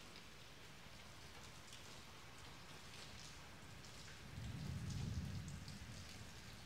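Steady rain falling, with scattered drops ticking on surfaces. About four seconds in, a low rumble swells for a second or so and fades.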